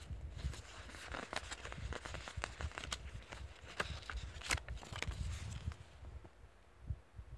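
Paper rustling with sharp crinkles and ticks as the paper wrap-around band is slid off a paperback comic book by hand, over a low handling rumble; it quietens about six seconds in.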